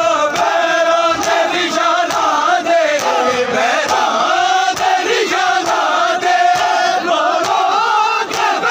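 A crowd of men chanting a noha together, with a steady beat of open-hand chest-slapping (matam) at about two to three slaps a second.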